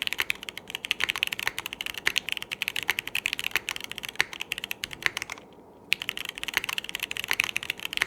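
Typing on a Smoke 65% mechanical keyboard with TYPEPLUS switches, a 4 mm PEI plate and JTK SORA keycaps: a quick, dense run of keystrokes with a half-second pause a little past the middle.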